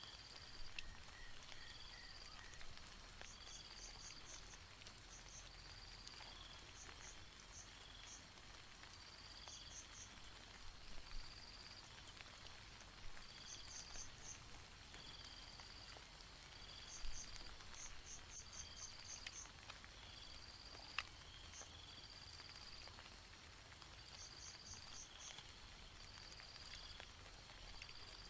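Insects calling in a steady rhythm: high, even chirps about once a second mixed with short pulsed trills of four to six notes. Behind them, a faint patter of rain with an occasional sharp drip.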